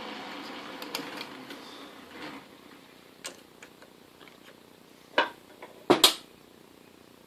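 Metal lathe running down, its steady sound fading out over the first two seconds or so. Then scattered light clicks and three sharp knocks about five to six seconds in, as metal parts are handled on the bench.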